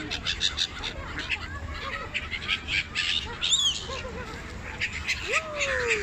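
Water birds calling over the pond, with a short high call about halfway and a long falling call near the end, over irregular splashing from a crowd of feeding fish thrashing at the surface.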